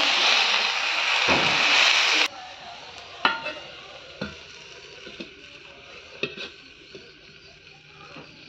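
Leafy greens sizzling loudly in a hot iron kadai while a spatula stirs them. After about two seconds the sizzle drops suddenly to a fainter hiss, and a steel bowl knocks and clinks a few times as it is set over the pan as a lid.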